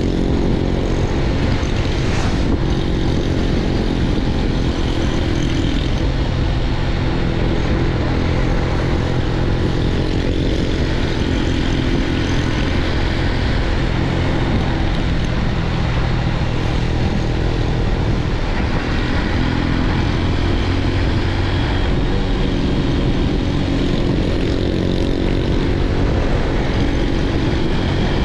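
Motorbike engine running at a steady cruising speed while riding, with wind rushing over the microphone.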